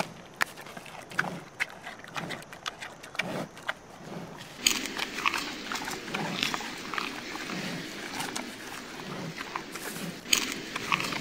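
Giant panda chewing leafy bamboo: sharp separate crunches and snaps, then about four and a half seconds in a denser, louder run of crunching and munching.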